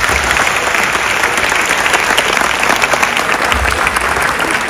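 Large audience applauding, a steady dense clapping that holds evenly throughout.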